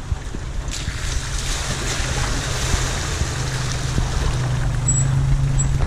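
A Ford Maverick 4x4 drives through a shallow river ford, its tyres splashing and churning the water over a steady low engine hum. The hum grows a little stronger in the last second or two.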